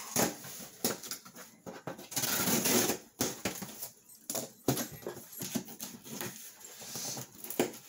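Cardboard shipping box being opened by hand: scratching, scraping and rustling of cardboard and packing tape, with one longer, louder tearing scrape about two seconds in and scattered short clicks and knocks.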